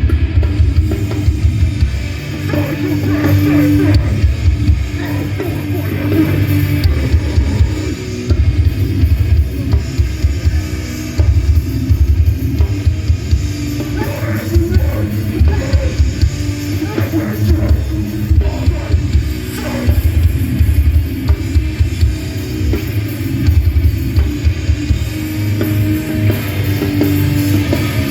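A metallic hardcore band playing live, heard through a phone held up in the crowd: heavy distorted guitars and bass over fast, pounding drums, loud and dense.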